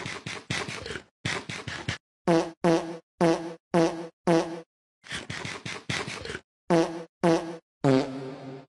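A rapid string of short, pitched, fart-like comedy sound effects, about two or three a second in clusters, each cut off sharply with dead silence between.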